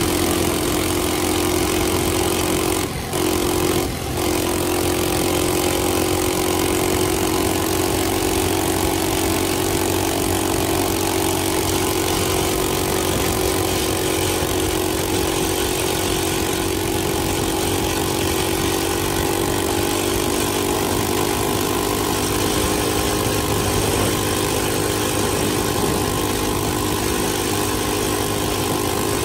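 Modified Coleman CT200U minibike's 196cc single-cylinder engine, fitted with a 30 mm PWK carburetor, running at a steady, unchanging speed. The sound briefly drops out twice, about three and four seconds in.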